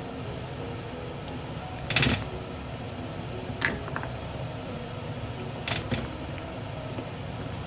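Wooden spatula stirring a stew in an enamelled pot, knocking sharply against the pot three times, the loudest about two seconds in, over a steady low background.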